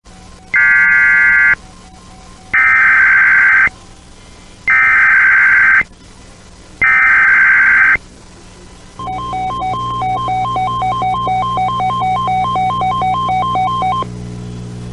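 Emergency Alert System activation on an internet radio stream: four bursts of about a second each of screeching digital data tone (the alert's coded header), followed by about five seconds of a pulsing two-tone attention signal, roughly four beats a second. The alert is a tornado warning.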